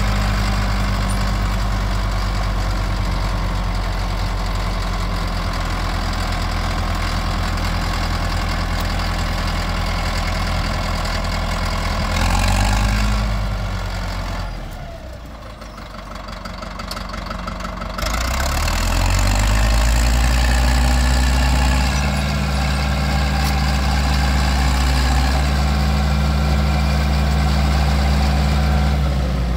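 Caterpillar 951C track loader's diesel engine running steadily, revving up briefly about twelve seconds in, then dropping low for a few seconds before revving up again and holding higher revs, settling back down at the very end.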